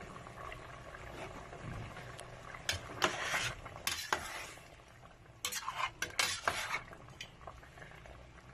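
A ladle stirring thick chicken afritada stew in a stainless steel pot, scraping and clinking against the pot in several short bursts, the busiest a third of the way in and again past the middle.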